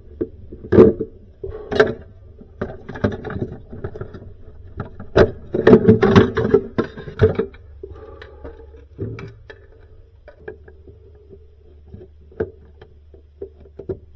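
Hands working plastic wire connectors: scattered clicks, taps and rustling, with a busier stretch of handling in the middle, over a steady low hum.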